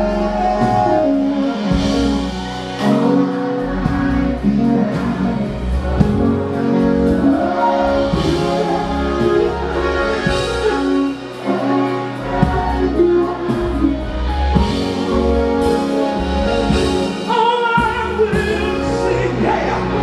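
Live gospel music: a singer's voice over a band with sustained keyboard chords and occasional drum hits.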